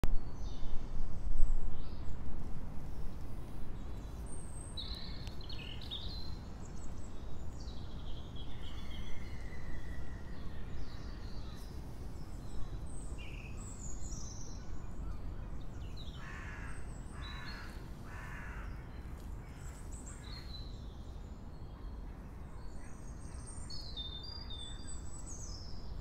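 Wind rumbling and buffeting the microphone in gusts, strongest in the first couple of seconds, with scattered bird chirps and song notes over it. About two-thirds of the way through, a bird gives three harsh calls in a row.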